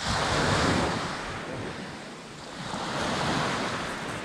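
Small sea waves breaking and washing up a pebble beach, surging twice: right at the start and again about three seconds in.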